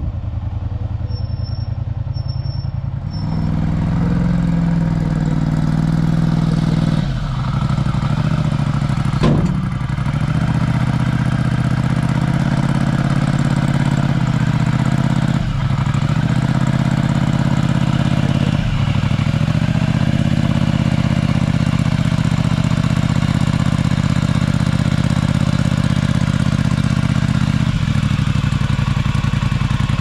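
The engine of a small machine is running while it is driven onto a trailer. It revs up about three seconds in and dips briefly several times as the load changes. Three short high beeps sound near the start.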